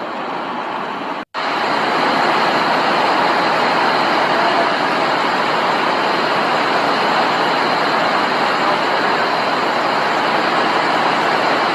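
Steady hiss of heavy rain pouring down, with a short break a little over a second in, after which it is louder.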